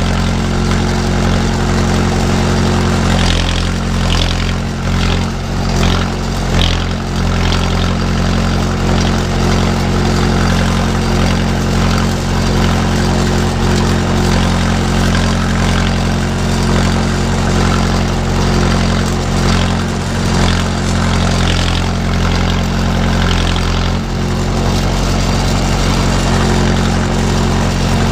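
A 45 hp utility tractor's engine running steadily at an even throttle as the tractor drives along carrying a round hay bale on its front loader.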